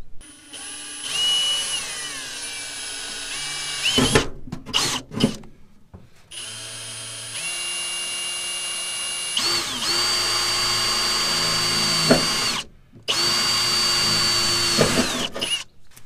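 Cordless drill boring 1/8-inch pilot holes through the steel floor of a pickup bed. The motor whines in several long runs with short stops between, its pitch dropping early in the first run and stepping up partway through a later one.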